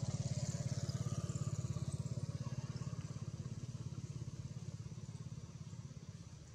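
A small engine running with a fast, even pulse, gradually fading away.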